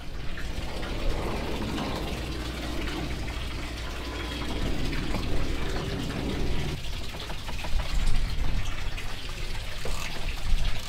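Water sloshing and lapping against the boat, a steady wash of noise.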